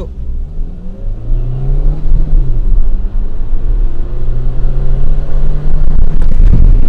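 Toyota Corolla engine accelerating, heard from inside the cabin with road rumble underneath: the engine note rises, dips about two seconds in, then climbs slowly again.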